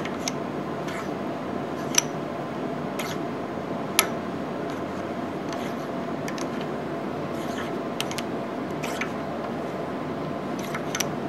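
Bottoming tap being backed out by hand from a tapped hole in a cast-iron lathe carriage, giving scattered sharp ticks and creaks as chips break, the loudest about two and four seconds in. A steady hum runs underneath.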